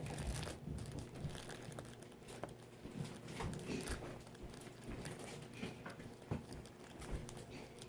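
Hands working slime: irregular, quiet sticky clicks and crackles.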